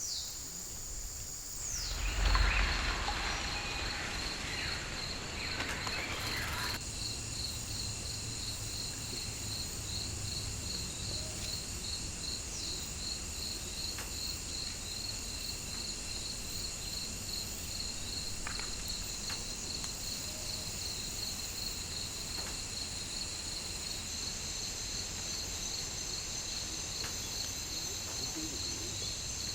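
Forest insects trilling steadily: a fast pulsing high trill over a higher, steady insect hiss. From about two seconds in, a loud rush of noise with a low rumble sits beneath them and cuts off suddenly a few seconds later.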